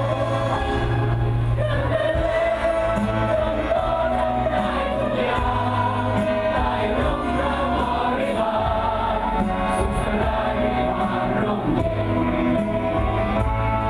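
A group of voices singing together in chorus, a slow held melody over steady low instrumental notes.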